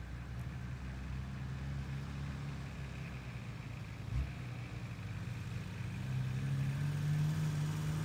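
Off-road 4x4 engines running at low revs as the vehicles crawl over a rocky track, growing louder about six seconds in as they come closer. A single short thump about four seconds in.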